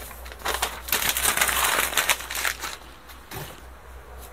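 Sheets of paper rustling and crinkling as they are handled and pulled off a pressed sheet of fabric labels, louder for about two seconds starting about half a second in, then quieter handling noises.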